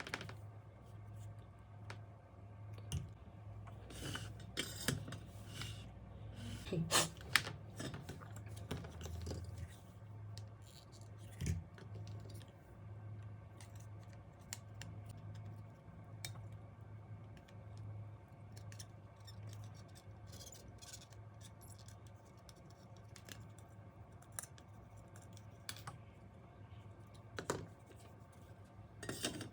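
Handling noises from unpacking a soldering iron: scattered clicks, taps and short scrapes of packaging and plastic parts over a low steady hum.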